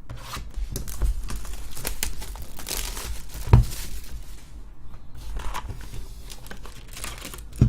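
Plastic packaging of a trading-card box crinkling and tearing as it is unwrapped, with a sharp knock about three and a half seconds in and another near the end.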